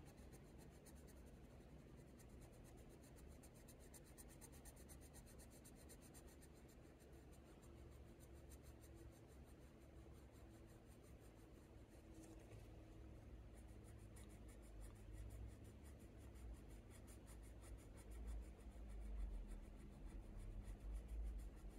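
Faint scratch of a colour pencil being worked lightly over hot-press watercolour paper in small blending strokes, growing a little louder in the last few seconds.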